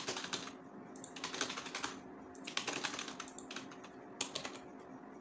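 Computer keyboard being typed on fast, keys struck at random, in several quick bursts of keystrokes with short pauses between.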